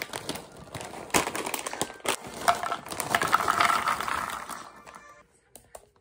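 Plastic snack bag crinkling and rustling as it is shaken open, then a bag of puffed bread-shaped snacks pouring into a wooden bowl, a dense clattering about halfway through that tails off about a second before the end.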